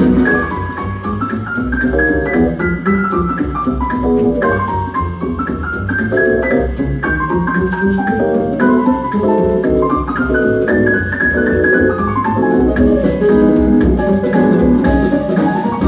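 Instrumental break in a song: a melody with repeated descending runs of notes over a steady beat, with no singing.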